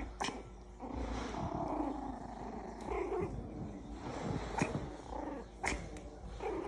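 Six-week-old Havanese puppies growling as they play-fight and chew toys, an uneven low rumble broken by a few short, sharp squeaks.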